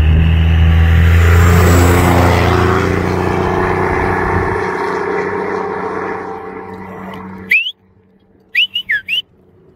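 A motor vehicle's engine running loud and steady, slowly fading and then cutting off suddenly about three-quarters of the way through. A few short, high sweeping chirps follow near the end.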